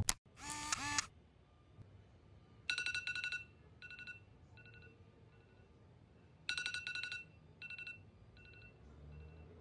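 A short bright transition sound at the very start, then an iPhone alarm ringing: two bursts of rapid high beeps about four seconds apart, each followed by fainter repeats.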